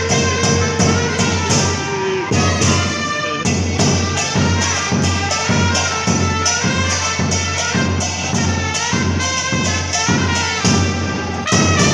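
Two trumpets playing a cumbia melody together over a steady beat on a bombo murguero, the murga bass drum.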